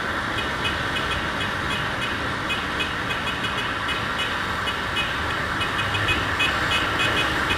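Motorcycle on the move: a steady rush of wind and road noise mixed with engine sound, heard from the rider's own microphone.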